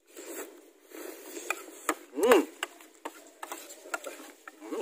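Metal spoon and fork clicking against a ceramic plate while eating, a handful of light sharp clinks. About two seconds in there is a short voiced sound from the eater, rising then falling in pitch.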